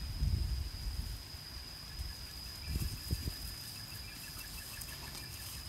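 Puppies scuffling and rustling in the grass as they play-fight, loudest near the start and again about three seconds in. A steady high insect whine runs underneath, and faint rapid chirping comes in about halfway through.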